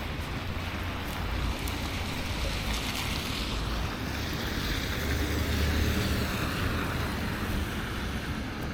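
Steady rushing outdoor noise with a low rumble, like wind on a chest-mounted action camera's microphone during a snowstorm; no distinct events stand out.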